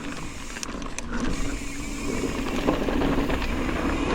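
Mountain bike rolling down a dirt trail: tyres on dirt and rock and the bike rattling, with a few sharp knocks, getting louder as speed builds.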